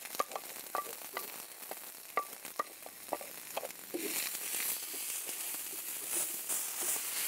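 Chopped onion sizzling on a hot clay comal, with scattered small pops and ticks. From about four seconds in, a wooden paddle stirs and scrapes the onion across the griddle and the sizzle grows louder.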